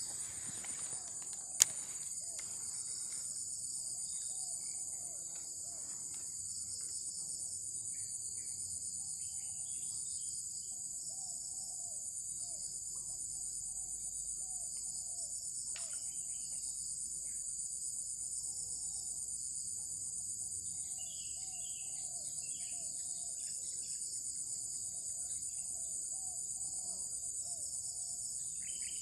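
Steady high-pitched shrill chorus of insects, unbroken throughout. A single sharp click about a second and a half in stands out as the loudest sound.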